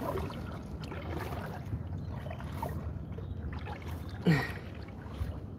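Kayak paddle working the water: a steady low wash of water and wind, with one loud paddle stroke about four seconds in, a short plunk that falls in pitch.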